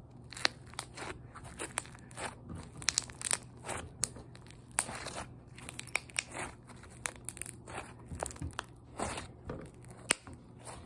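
Hands pressing and pulling Elmer's slime, giving irregular sticky clicks and crackles several times a second. The sound is mostly the hands coming away from the slime, the sign that it is more sticky than poppy.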